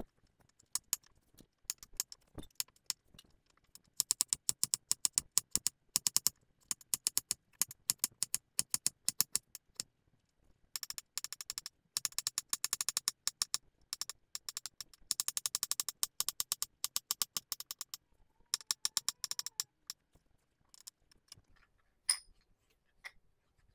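Chef's knife chopping carrots on an acacia end-grain wooden cutting board: quick knocks of the blade on the board, several a second, in runs of a few seconds with short pauses.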